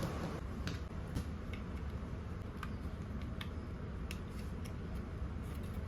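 Small plastic Lego pieces clicking as they are handled and pressed together: light, sharp clicks at irregular intervals, about one or two a second, over a steady low hum.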